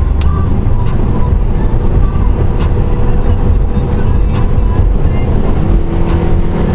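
Cabin sound of a Scion tC's four-cylinder engine and tyres on the move, under loud bass-heavy rap music from the car stereo.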